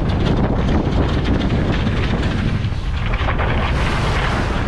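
Strong wind buffeting the microphone on a sailing yacht, a loud steady rumbling rush, with wind and sea noise mixed in.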